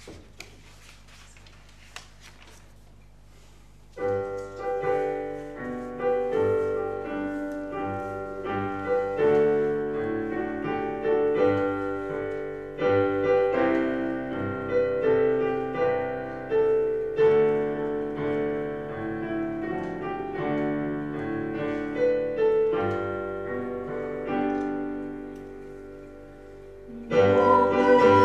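Piano playing a hymn tune in slow chords, starting after a few seconds of quiet with a couple of clicks: the introduction before congregational singing. Near the end the piano fades, and the congregation comes in singing, louder.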